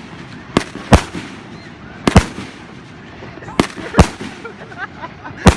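Fireworks going off in a finale: about seven sharp bangs at irregular intervals of half a second to a second and a half, each trailing off in a short echo.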